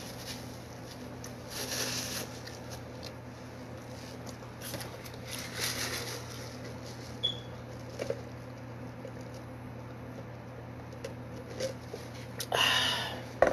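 Paper napkin rustling and crumpling in a few short bursts, the loudest near the end, over a steady low hum.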